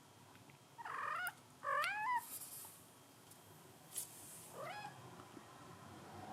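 Young kitten mewing: three short, high calls, the second the loudest and wavering in pitch. A brief soft rustle follows it, and there is a single sharp click about four seconds in.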